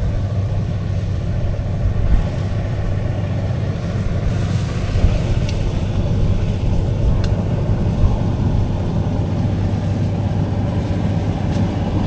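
An engine idling steadily with a low, even hum.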